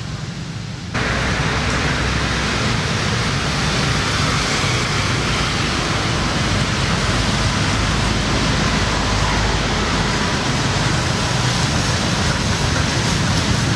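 Steady rushing outdoor background noise, a hiss with a low rumble underneath, that comes in abruptly about a second in and then holds level.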